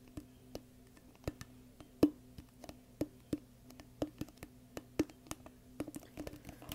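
Fingertips tapping and flicking a red plastic cup close to the microphone: sharp, uneven hollow taps, about two or three a second, with one louder tap about two seconds in.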